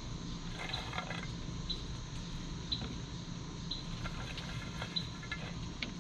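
A short high insect chirp repeating about once a second over a steady low hum, with two brief spells of light ticking.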